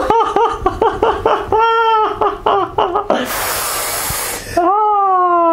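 A man crying out in pain: a quick run of short yelps, then a hiss of breath through clenched teeth about three seconds in, then one long falling cry. It is the sting of perfume, used for its alcohol as a disinfectant, sprayed onto a freshly cut-open foot blister.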